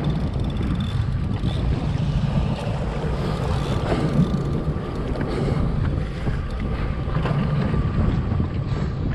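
Strong wind buffeting the microphone over a rough, choppy sea, with water sloshing around a jet ski. The noise is steady throughout.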